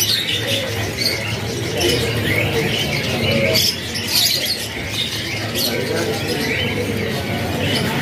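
Many young canaries, about two to three months old, chirping and twittering in a crowded cage: short, high, overlapping calls with no settled song, over a low steady hum.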